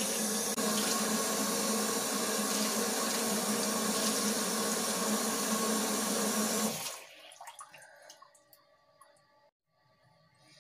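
Bathroom tap running steadily into a sink while a face is rinsed under it, shut off about seven seconds in; faint small splashes and rustles follow.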